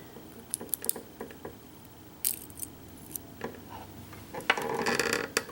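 Small metal lock parts being handled as a pin-tumbler lock is disassembled: light clicks and taps of pins and springs being set down, then a longer metallic rattle near the end.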